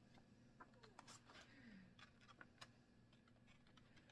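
Near silence with a few faint ticks and soft rustles of paper: the pages of a book that had stuck together being handled and pulled apart.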